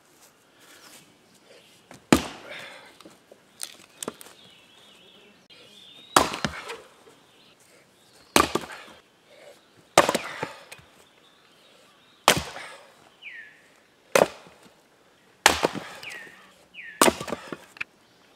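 Axe splitting firewood rounds: about eight sharp chopping blows into the wood, one every second or two, each with a short crack of splitting wood.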